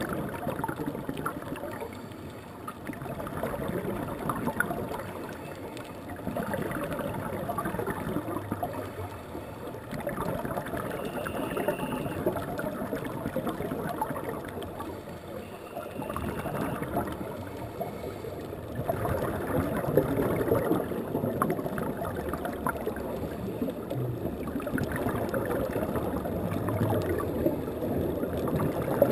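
Scuba diver breathing through a regulator underwater: bursts of exhaled bubbles gurgling and bubbling, swelling and fading in a rhythm of a breath every few seconds.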